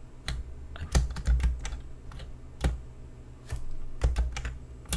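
Computer keyboard keys pressed in irregular short clusters with brief pauses between, clicking sharply.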